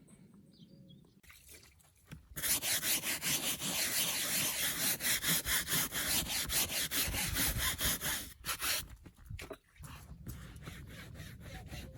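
Rapid back-and-forth scrubbing strokes, a surface being wiped and scrubbed clean; it starts about two seconds in, runs for about six seconds, and fades to a fainter rubbing near the end.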